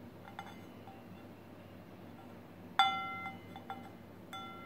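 Stainless steel plate clinking and ringing as it is knocked lightly while the sticker is picked off it: a few faint clinks at first, a louder ringing clink about three seconds in, then two smaller ones.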